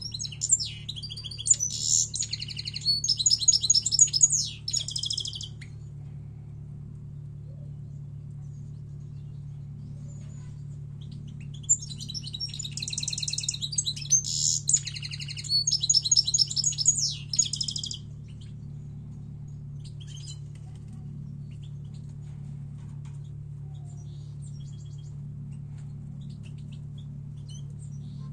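European goldfinch singing two bouts of rapid, twittering song, one near the start and one about twelve seconds in, each lasting about five seconds, over a steady low hum.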